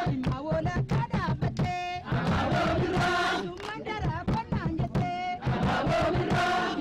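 A group of Ethiopian dancers singing and chanting together over steady, rhythmic hand-clapping, with high voices that hold notes and waver.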